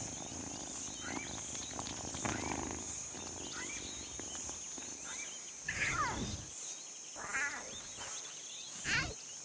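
Lion cubs mewing: three short calls that drop sharply in pitch, about halfway through, a little later and near the end. Crickets chirr steadily behind them.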